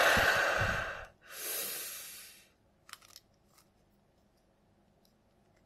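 A heavy, pained breath out followed by a sharp breath in, then a few faint clicks.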